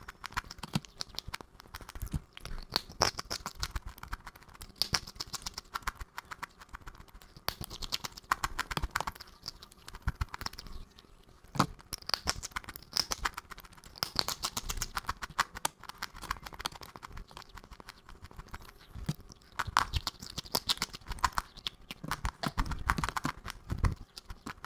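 Close-miked crunching of something crisp: rapid crackling bites and chews that come in bursts of a second or two with short pauses between them.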